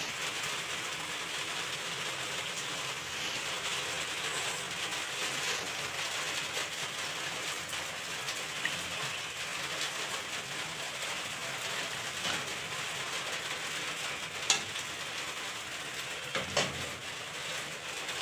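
Steady bubbling hiss of chicken broth boiling in a stainless steel pot on a gas stove as noodles are stirred in, with a few sharp knocks of the stirring utensil against the pot late on.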